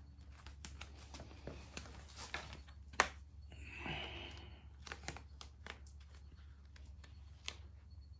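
Faint handling of vinyl decal sheet and its backing paper on dirt-bike plastic: scattered small clicks and crinkles, a sharp click about three seconds in, and a short rustle of vinyl being rubbed or peeled just after.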